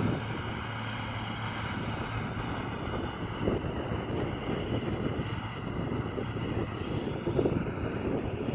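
Case Puma 165 tractor's six-cylinder diesel engine running steadily under load as it pulls a seedbed cultivator, heard from a distance as a constant low drone.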